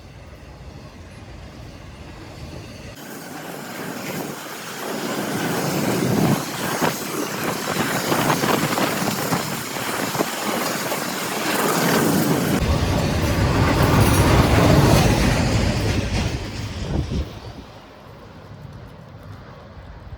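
CSX intermodal freight train passing, its wheels clattering over the rail joints with some squeal. It builds up about three seconds in, is loudest through the middle, and dies away near the end.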